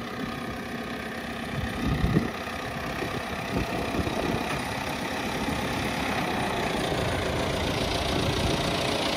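MTZ tractor's diesel engine running steadily while it works a front loader, gradually getting louder toward the end.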